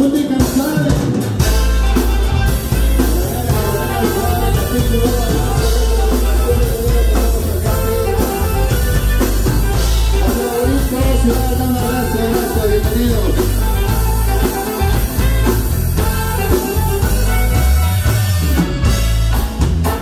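Norteño sax-conjunto music from a band with saxophone, bajo quinto, electric bass and drums, a strong bass line coming in about a second and a half in.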